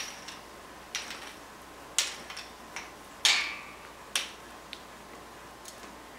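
Irregular sharp clicks and taps of a squirrel and a string-tied peanut on a tiled floor, about seven in all. The loudest is a short scrabble about three seconds in.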